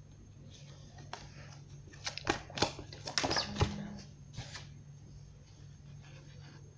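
Tarot cards being handled: a card drawn from the deck and laid down, giving a quick flurry of sharp snaps and taps about two to four and a half seconds in.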